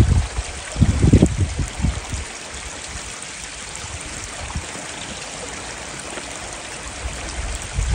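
Mountain stream running steadily, an even rushing hiss. Low rumbles of wind on the microphone in the first couple of seconds.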